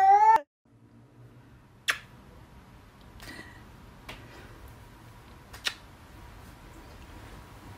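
A cat's drawn-out meow cuts off abruptly about half a second in. Then there is low, steady background noise with four faint clicks spread over the next few seconds.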